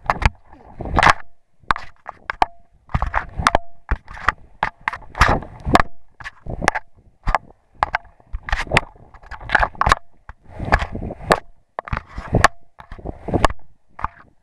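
Camera handling noise: the camera is jostled and tumbled about, and rubs, scrapes and knocks against it come about once or twice a second in an uneven string.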